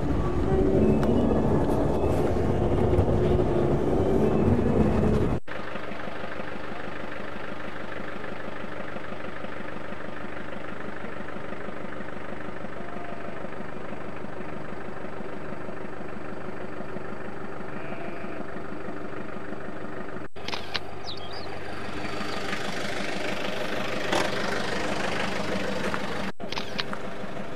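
Engine and road noise of a moving vehicle heard from inside it: a steady hum, louder and rougher for the first five seconds, then even, with more hiss over the last several seconds. The sound changes abruptly a few times.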